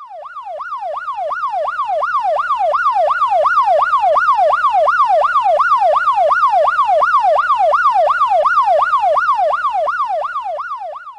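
Police car siren in a fast yelp, its pitch sweeping up and down nearly three times a second. It fades in at the start and fades out near the end.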